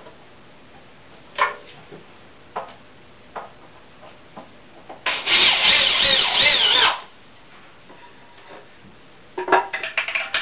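Power drill driving a screw into wood for about two seconds, its whine wavering under load, with scattered knocks of wood and tools before it and a quick run of clattering knocks near the end.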